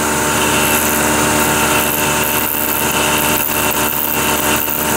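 Vertical milling machine running steadily: a motor hum with a hiss over it, as a 0.094-inch end mill mills the side of a narrow slot wider by about 15 thousandths.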